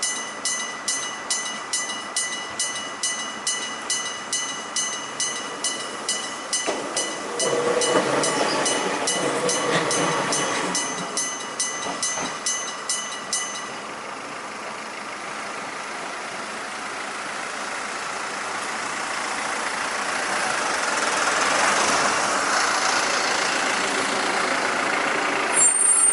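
Electric bell of an old level crossing ringing in even strokes, about one and a half a second, while a single-car electric train of the Gakunan Railway rumbles through from about 7 s in. The bell stops at about 13 s, and a road vehicle's noise then swells up as it approaches.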